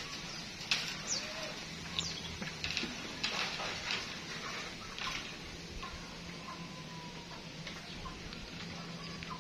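Scattered rustling and light knocks for the first five seconds or so, with a few brief high bird chirps among them. A faint steady low hum runs underneath.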